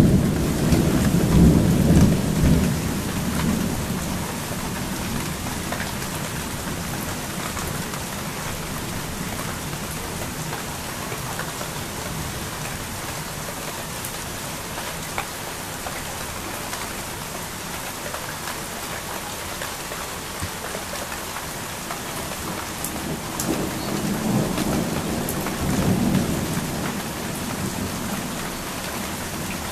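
Steady rain falling during a thunderstorm. A low rumble of thunder fades over the first few seconds, and another rolls in and swells about three-quarters of the way through.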